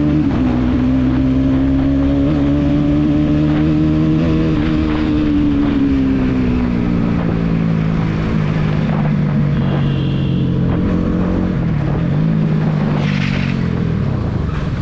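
Bajaj Pulsar NS200 single-cylinder engine running under way at road speed. Its pitch eases down about halfway through and dips briefly near the end.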